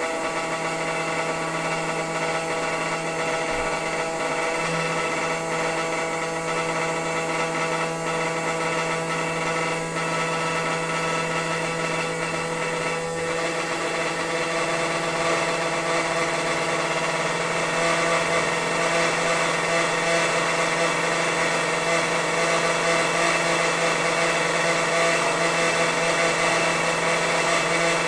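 Noisy water pipes humming: a steady, pitched drone with many overtones over the hiss of flowing water. It grows a little louder and rougher about two-thirds of the way through.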